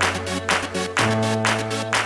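Electronic dance music with a steady beat of about four hits a second over a sustained bass line.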